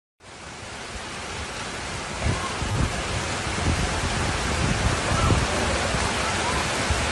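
Heavy rain and rushing floodwater, with wind gusts buffeting the phone's microphone. It comes in just after the start and builds steadily louder.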